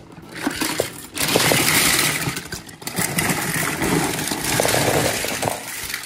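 Loud car engine noise with scattered knocks, rising about a second in and easing off near the end.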